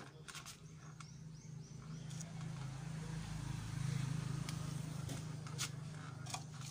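A motor vehicle's engine running close by, growing louder to a peak about four seconds in and then easing off, as if passing. Scattered light clicks and rustles of plastic pots being handled.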